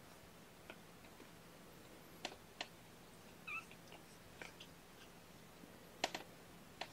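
One short, faint mew from a very young kitten about halfway through. A few sharp clicks and taps come before it and in a cluster near the end.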